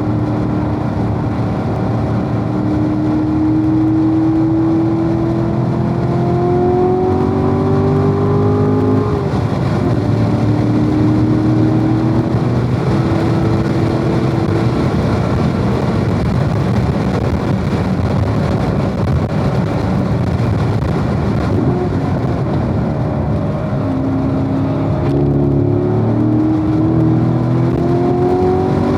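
Corvette V8 heard on board at speed on track. The engine climbs in pitch under acceleration, drops sharply at an upshift about a third of the way in, and is then largely covered by a steady rush of wind and road noise. It climbs again near the end.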